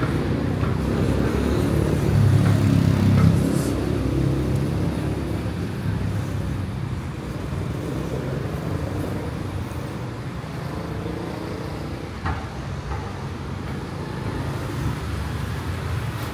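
Street traffic rumble, with a motor vehicle passing close and loudest about two to three seconds in.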